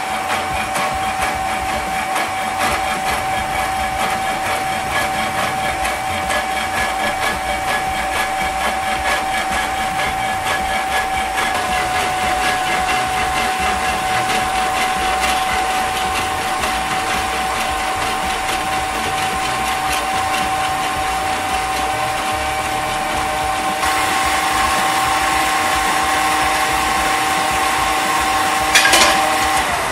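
Homemade motor-driven power hacksaw cutting through a square metal tube, its electric motor running with a steady whine under the scraping of the reciprocating blade. There is a brief louder rise near the end as the sound falls away.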